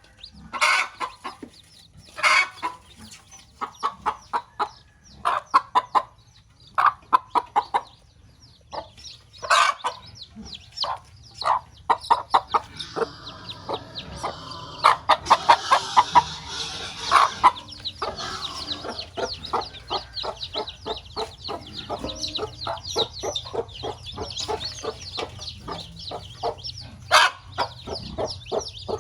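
Broody hen clucking in quick runs of short calls, with newly hatched chicks peeping in high, rapid chirps that thicken about halfway through.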